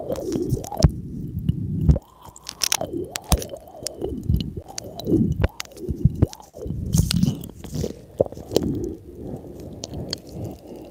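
Close-up chewing and wet mouth noises, with many sharp clicks and smacks, as a man chews on a thin white cord held at his lips.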